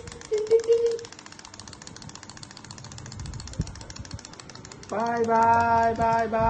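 Rapid mechanical ticking of wind-up toy chicks hopping on a hard tabletop, loud for the first second and then faint. About five seconds in, a long drawn-out voice holds one steady note.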